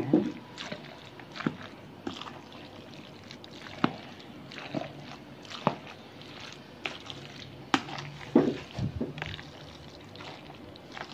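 A spoon stirring creamy macaroni salad in a red plastic basin: soft wet squelching of the dressed pasta, broken by irregular knocks and scrapes of the spoon against the bowl.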